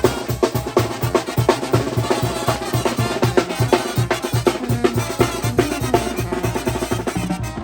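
Mexican wind band (banda) playing, with drums keeping a steady, fast beat under the melody.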